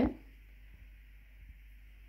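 Quiet kitchen room tone with a faint steady hiss and a couple of very faint soft ticks. The end of a spoken word is heard at the very start.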